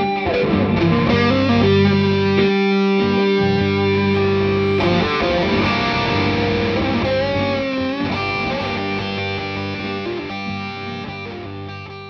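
Electric guitar music: held notes over a steady low chord, with a bend down at the start and a wavering, vibrato-like note about seven seconds in, fading out near the end.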